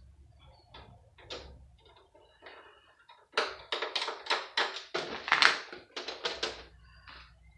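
Quick, irregular clicks and taps of hand tools on a PlayStation 3's metal and plastic parts during dismantling, coming thick and fast from about three seconds in. Before that, only a few faint taps over a faint low hum.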